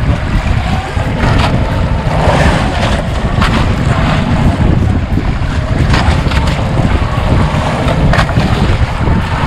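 Wind buffeting the microphone over sea water washing and slapping against a small outrigger fishing boat's hull, with a few short sharp splashes or knocks along the way.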